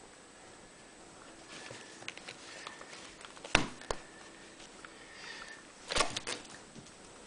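Close-up handling knocks and rustles: a sharp knock about three and a half seconds in, a lighter one just after, and a quick cluster of knocks about six seconds in, amid soft scuffling.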